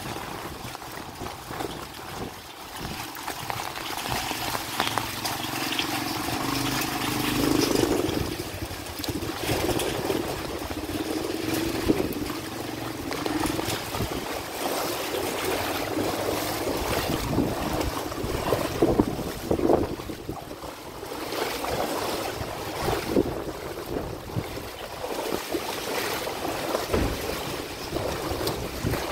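Rain and running floodwater on a street, with vehicles driving through the water: a steady wash of water noise broken by irregular splashes, and an engine hum that rises about a quarter of the way in and fades a few seconds later.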